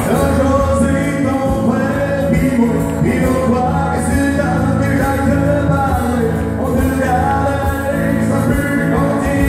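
Live country music from an ensemble of strummed acoustic guitars, with a man singing over them.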